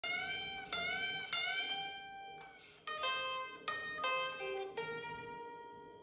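Fender Stratocaster electric guitar: three notes picked and bent upward in pitch, one after another, then a few unbent notes that ring and fade. The bends bring a short high scratchy noise from the string tree, the string catching as it slides under the tree on the headstock.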